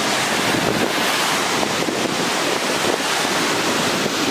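Waterfall rushing: a steady, even rush of falling water.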